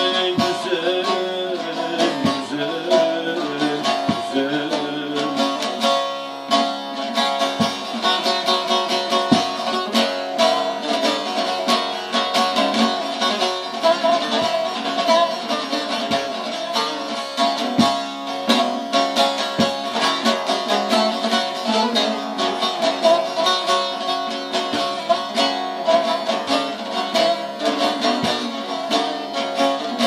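Bağlama (long-necked Turkish saz) played solo with a plectrum: a folk melody in quick, steady strokes.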